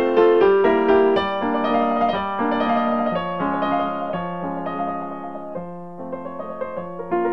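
Piano music: a melody over held chords that grows softer towards the middle and picks up again near the end.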